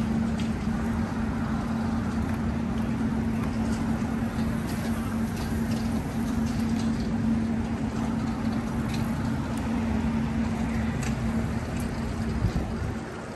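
City street traffic noise: a steady wash of passing vehicles with a low, even hum that cuts off near the end.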